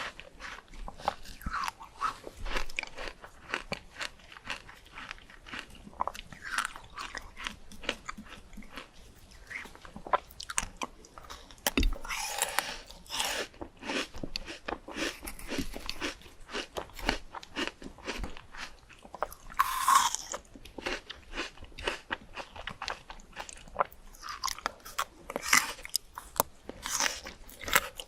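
A person chewing and crunching fruit close to the microphone: a steady run of crisp bites and chews, with a few louder crunches, around twelve seconds in, twenty seconds in and near the end.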